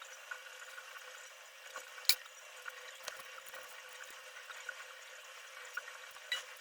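Faint steady hiss with scattered light ticks, and one sharp click about two seconds in.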